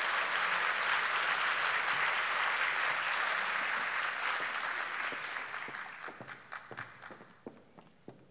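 Audience applause in a large hall, dense for the first few seconds, then dying away and thinning out to a few separate sharp knocks near the end.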